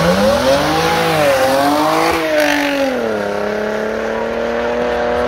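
Car engine revving hard as the car launches from a standstill with wheelspin, in a drag-race pull. The revs climb, dip briefly and climb again, drop about three seconds in, then hold at a steady pitch.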